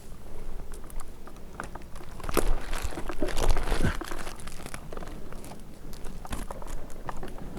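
Irregular close-up crunching, crackling and scraping, loudest for a couple of seconds near the middle: dry bark and dead twigs of a dead pine breaking and rubbing against a climber's gear.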